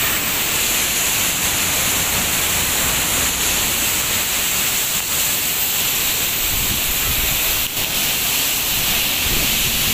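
Binangkaan Falls pouring into its plunge pool: a loud, steady rush of falling water.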